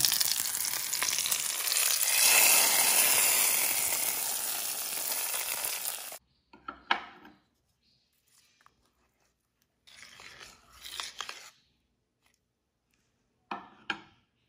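Hot coconut-oil tempering of mustard seeds, curry leaves and chillies poured from a steel pan into a simmered curry, sizzling loudly, strongest about two seconds in, and cutting off abruptly after about six seconds. Then a ladle stirs the tempering into the curry, with a few scrapes and knocks against the pot.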